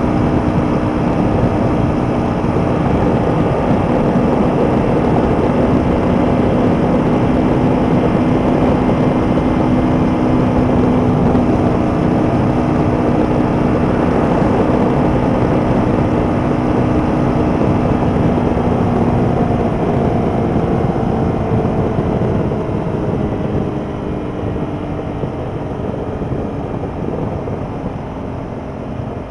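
2006 Ducati Paul Smart 1000 LE's air-cooled L-twin engine running hard at high speed, mixed with wind and road noise. Its pitch holds steady, then falls and the sound grows quieter over the last ten seconds or so as the bike slows.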